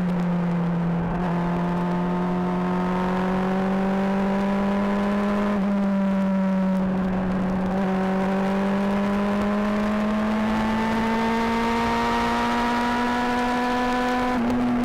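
Honda CBR600RR inline-four engine and exhaust running under way, picked up by a microphone near the exhaust. The note dips slightly in the first second, then climbs slowly as the bike gathers speed, with a few small steps in pitch.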